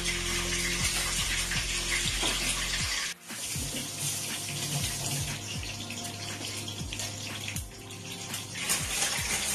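Steady rushing hiss, water-like, with soft background music under it; the hiss drops out for a moment about three seconds in, then carries on.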